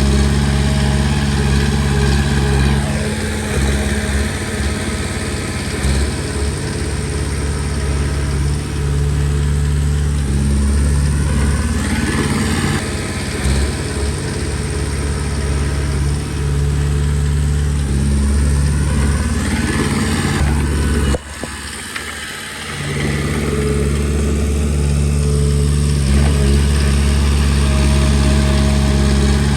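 Komatsu D20P bulldozer's diesel engine running under load, its pitch rising and falling several times as the dozer works. The sound drops suddenly for about a second and a half about two-thirds of the way through, then picks up again.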